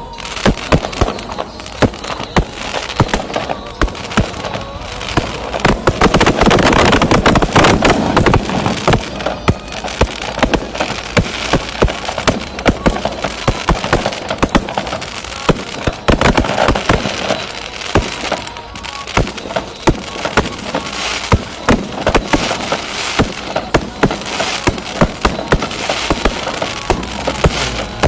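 Fireworks going off: a long run of sharp bangs and crackling pops, thickest and loudest about six to nine seconds in.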